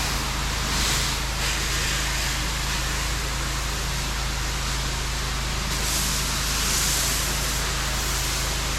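Pressure washer wand spraying a steady hiss of water and cleaning solution onto lanai screens and aluminum frames, the spray getting louder and brighter about a second in and again from about six to seven and a half seconds in. A steady low hum of the pressure washer's engine runs underneath.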